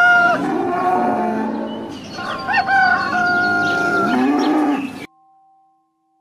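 Farm-animal sounds: a rooster crowing, with a cow mooing between and after the crows. All of it cuts off suddenly about five seconds in.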